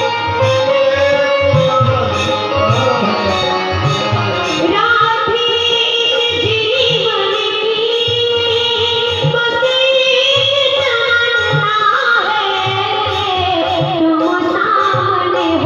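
Hindi devotional bhajan music: a female voice sings long, gliding held notes over a steady tabla beat.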